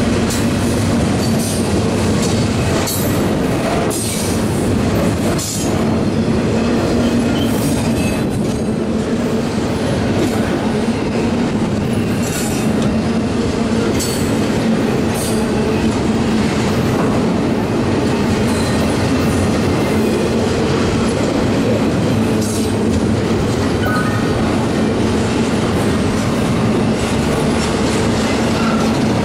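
Intermodal freight train's double-stack well cars and trailer cars rolling past: a steady rumble of steel wheels on rail, with irregular clicks and clacks as wheels cross rail joints and a few brief wheel squeals.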